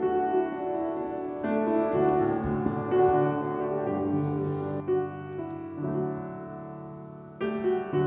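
Keyboard playing slow held chords that change every second or two, one fading out before the next is struck: the instrumental introduction to the offertory hymn.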